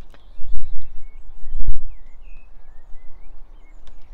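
Low rumbling buffets on the microphone in two loud gusts, about half a second in and near the middle, with small birds chirping in short rising and falling calls in the background.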